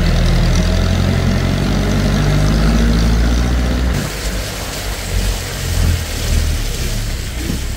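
Engine of a Philippine-style jeep running as it drives along a rough dirt road, a steady low drone. About four seconds in the sound changes abruptly to a rougher, more uneven rumble with a few jolts.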